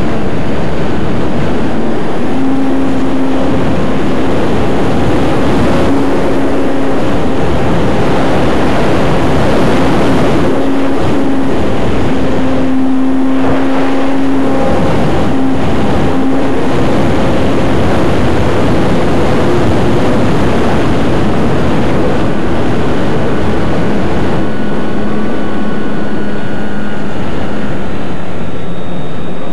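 Loud, steady rush of wind over a camera mounted under the wing of a radio-controlled T-28 model airplane in flight, with the plane's motor droning underneath. The motor's note comes and goes with the manoeuvres and sits lower near the end.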